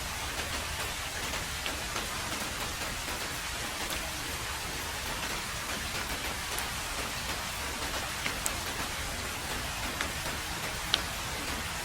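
Heavy rain falling steadily: a dense, even hiss with a few sharp drop ticks scattered through it, the loudest one near the end.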